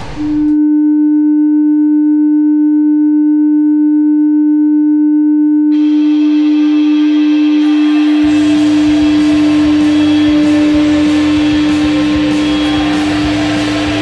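Newfoundland Growlers' arena goal horn sounding one long steady blast. The team's goal song comes in under it about six seconds in, with drums and bass joining about two seconds later.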